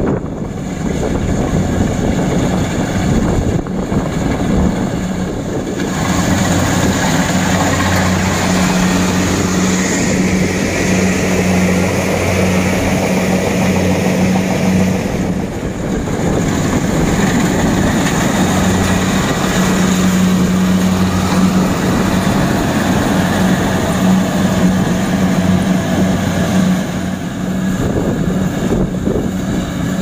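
Kubota DC-70 Plus combine harvester running under load as it cuts and threshes rice: a steady diesel engine drone with a low hum, mixed with the rushing noise of the machinery.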